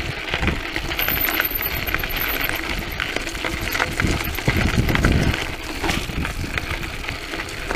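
Mountain bike rattling along a rough dirt trail: many sharp metallic clinks and rattles over a steady low rumble of tyres and wind, louder about four to five seconds in.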